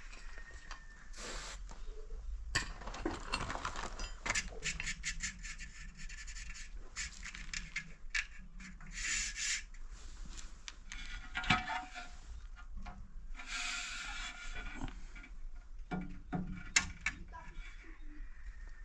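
Irregular scraping and rubbing with strings of clicks, and a sharp knock near the middle and another near the end.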